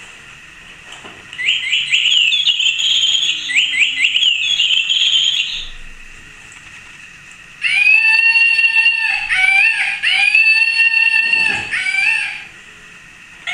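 Baby toys being sounded: first a quick run of short rising squeaks, then a few longer, held high-pitched squeaky tones that dip in pitch.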